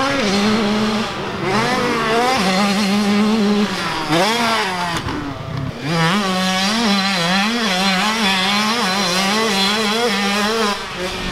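A 65 cc two-stroke motocross bike ridden hard, its engine revving up and dropping back with throttle and gear changes: several quick climbs in pitch in the first half, then a held, wavering rev for the last few seconds.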